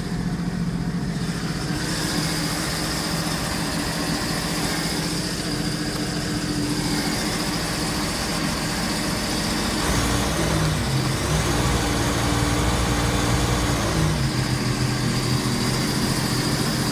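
Sea-Doo WakePro 215 personal watercraft's engine idling steadily, a little louder from about ten seconds in.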